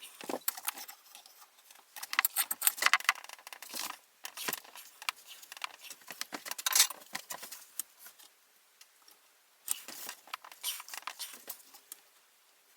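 Irregular light metallic clicks and rattles as the heated steel shaft of a quick-grip clamp is worked in a vise. The sound comes in clusters with short quiet gaps.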